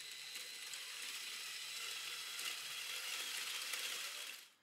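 Lego Technic train on its motor-driven infinite track, running with a dense rapid clicking and rattling of plastic parts and a faint steady whine. It stops abruptly near the end.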